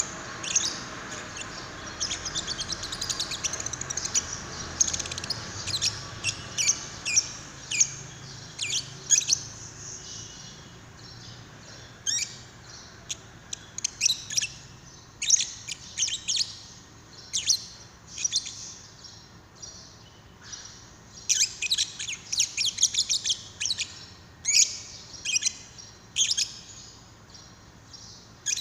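Lovebird chirping: rapid runs of sharp, high chirps in clusters, with short pauses between the runs.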